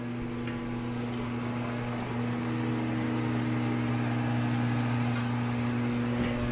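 Crankshaft grinding machine running steadily, its electric motor humming as it works a journal on a BSA A65 crankshaft; the hum grows slightly louder.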